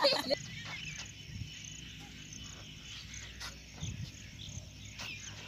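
Faint outdoor field ambience with a steady high insect chirring, broken by a few soft knocks.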